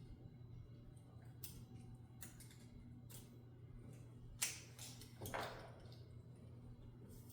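Scattered light clicks and taps of hand tools and small metal parts being handled, half a dozen short ones, the loudest about four and a half seconds in, over a faint steady hum.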